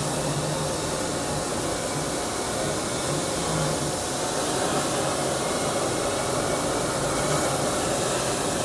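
Plasma cutter torch running on a DIY CNC table: a steady, even hiss of the arc and air stream, with a faint low hum under it.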